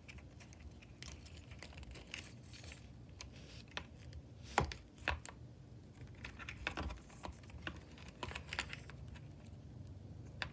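Faint scattered clicks and rustles of hands working a servo lead through the plastic receiver box of an RC car, with a sharper click about four and a half seconds in.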